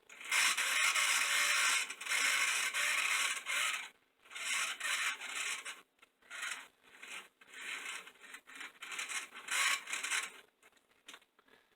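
HO scale Camelback steam locomotive's motor and gears running at full throttle with the wheels spinning free, a rasping whir with squeaking that shows the mechanism needs oil. It runs steadily for about four seconds, then comes in shorter stretches that start and stop.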